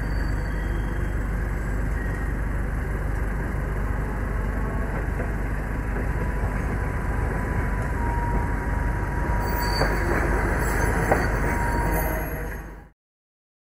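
Tosaden Kotsu streetcar running past on street tracks amid road traffic. A thin steady tone comes in about halfway, with a few clicks near the end. The sound cuts off suddenly shortly before the end.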